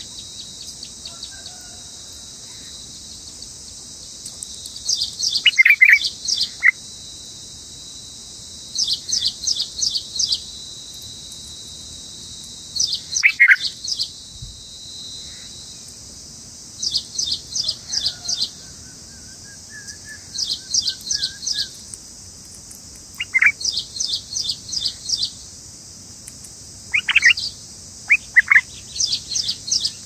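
Bulbuls calling at the nest: every few seconds a quick series of four to six high chirps, with a few louder, lower single calls between them, over a steady high drone of insects.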